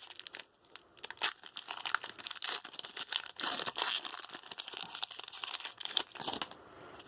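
Foil Pokémon card booster pack wrapper being crinkled and torn open: a run of irregular crackles and rustles.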